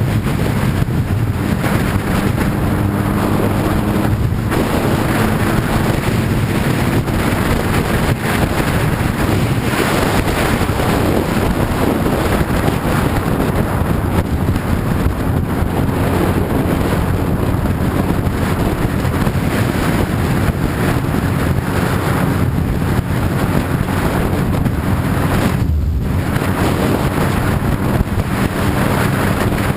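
Sport motorcycle riding at speed: a steady engine note under heavy wind rush on the microphone, with a brief drop in the wind noise about four seconds before the end.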